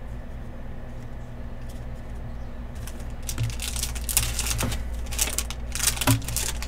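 Wrapper of a basketball trading-card pack being torn open and crinkled. A run of sharp crinkles starts about halfway through, over a low steady hum.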